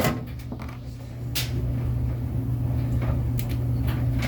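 A sharp click and a few lighter knocks of a washing machine's cover panel being fitted and screwed back on, over a steady low hum.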